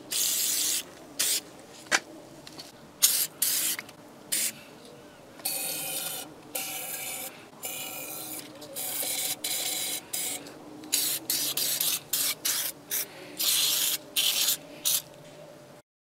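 Aerosol spray can with a straw nozzle hissing in a string of short bursts, with a few longer sprays of a second or more.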